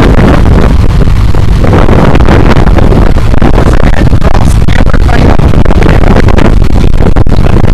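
Loud wind buffeting the microphone over the steady drone of a sportfishing boat's engines running under way.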